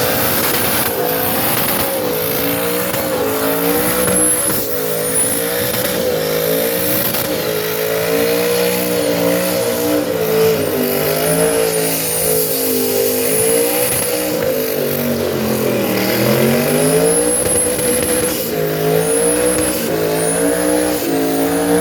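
A race car engine running hard, its revs rising and falling over and over, with one deep drop and climb about two-thirds of the way through.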